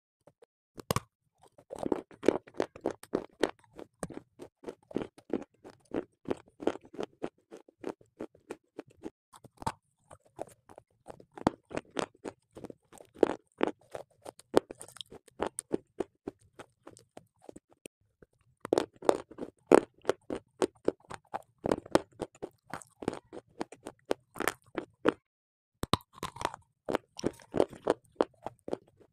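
Close-miked crunching and chewing as a person bites into a hard, chalk-like block: many quick, sharp crunches in runs, broken by a few short pauses.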